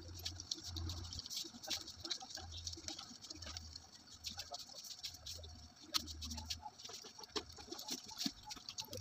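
Light plastic clicks and rattles from a tripod head and ring light parts being handled and fitted, with one sharper click about six seconds in.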